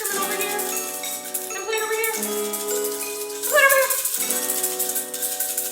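Instrumental music for a children's rain song, sustained chords, with a shaker-type rattle ticking along to the beat.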